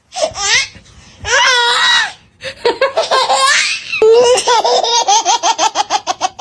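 People laughing: a few high, swooping bursts of laughter, then from about four seconds in a long run of rapid, evenly repeated 'ha-ha' laughs.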